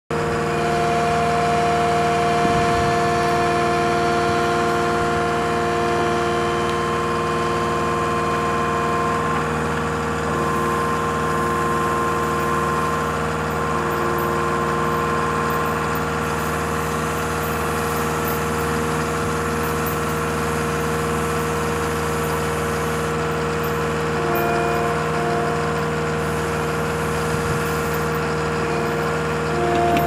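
ASV RT-120 Forestry compact track loader's diesel engine running steadily, with a hydraulic whine that changes as the lift arms with the Fecon mulcher head are raised and lowered.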